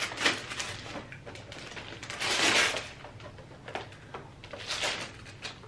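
Tissue paper rustling and crinkling as it is pulled off a gift-wrapped box, in several short bursts, the longest about two and a half seconds in.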